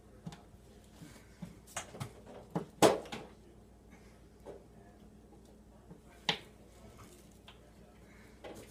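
Scattered knocks and clicks of hands and hardware working at a newly mounted microwave and the cabinet above it, with the sharpest knock about three seconds in and another about six seconds in.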